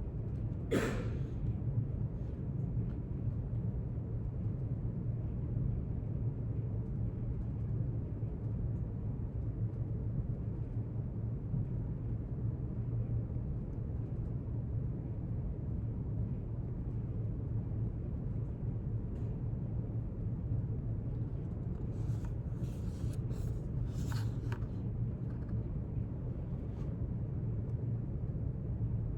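Quiet library room tone: a steady low hum, with a brief rustle or tap about a second in and a short cluster of rustles and taps about three quarters of the way through.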